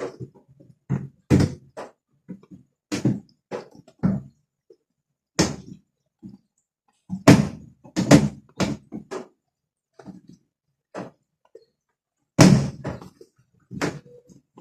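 Irregular knocks and thuds of hard objects hitting one another, about a dozen sharp hits spaced unevenly, some in quick pairs, the loudest about seven seconds in and near the end.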